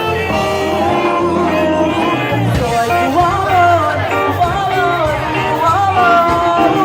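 Loud music with a singing voice over a steady bass line, its melody gliding up and down from about halfway through.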